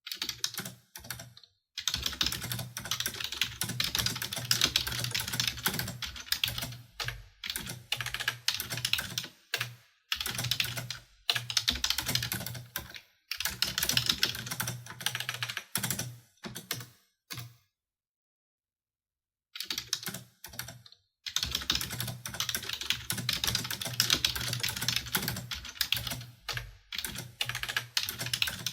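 Typing on a computer keyboard: rapid key clicks in bursts of a few seconds, broken by short pauses, with a longer silent gap about two-thirds of the way through.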